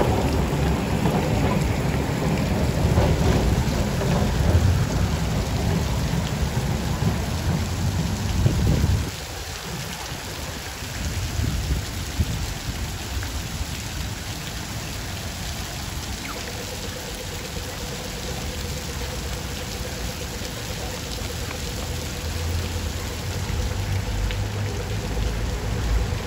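Tram rolling along street tracks with heavy low rumble and wind buffeting on the microphone; about nine seconds in the sound drops suddenly to quieter street traffic noise, with a faint steady hum later on.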